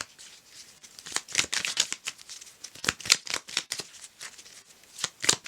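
Tarot cards being shuffled and handled: short flurries of crisp, papery snaps.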